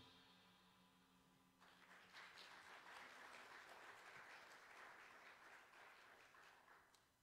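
The last of the music dies away, then faint applause from a small congregation starts about one and a half seconds in and stops shortly before the end.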